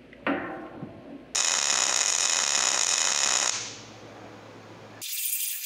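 MIG welder arc buzzing steadily for about two seconds after a short metallic clink, then fading. Near the end it cuts to the high hiss of a waterjet cutter.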